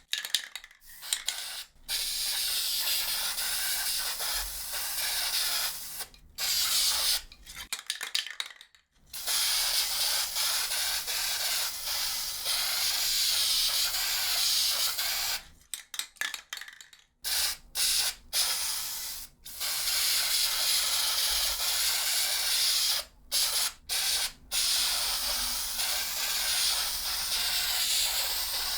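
Aerosol spray can spraying in a series of bursts: a few quick short spurts alternating with long, steady hisses lasting several seconds each.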